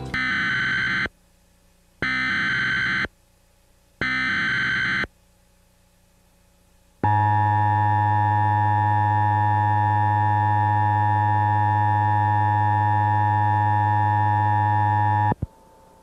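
Emergency Alert System activation: three one-second bursts of screechy digital SAME header data about a second apart, then, after a short pause, the steady two-tone EAS attention signal for about eight seconds, cutting off abruptly. It opens a severe thunderstorm warning broadcast.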